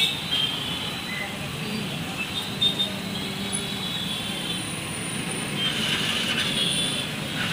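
Steady roadside traffic noise, a continuous hum of passing vehicles and engines.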